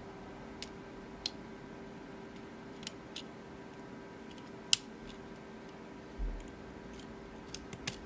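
Sparse, irregular small metallic clicks of a dimple pick and tension wrench working the pin-in-pin dimple pins of a Mul-T-Lock C-13 padlock, the sharpest about halfway through. A soft low bump comes a little after six seconds.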